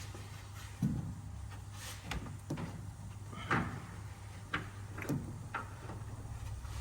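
About seven sharp knocks and clatters, spaced irregularly, over a steady low hum.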